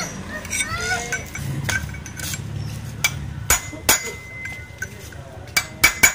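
Sharp metal clinks and knocks, like tools striking metal parts, with the loudest strikes in the second half. A few short rising-and-falling calls sound in the first second or so.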